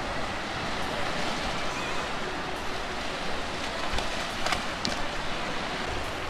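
Surf washing steadily onto the beach with wind rumbling on the microphone, and a couple of brief clicks about four and a half seconds in.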